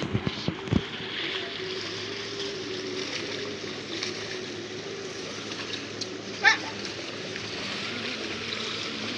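A pair of bullocks dragging a wooden plough through a flooded paddy field, their hooves sloshing and splashing in the mud over a steady hum. A few low thumps come in the first second, and a short, loud, shrill call about six and a half seconds in.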